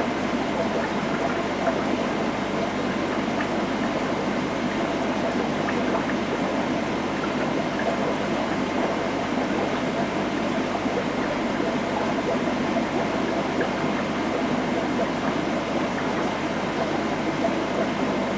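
Steady running and trickling water from aquarium filtration, with no breaks or distinct splashes.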